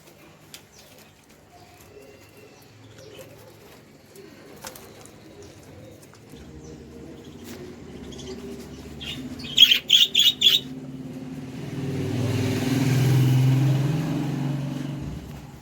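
Caged pigeons and small birds: low cooing and chirping, with four short, sharp chirps in quick succession about ten seconds in. Near the end a vehicle passes, swelling and fading over a few seconds.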